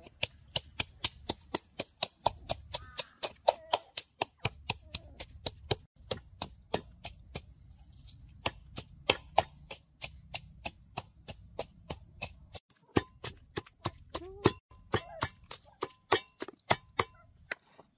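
Steady rhythmic chopping, a blade striking a cutting board about three to four times a second, pausing briefly twice.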